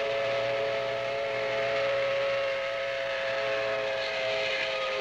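Steam locomotive chime whistle blowing one long held chord of several tones, dipping slightly in pitch near the end.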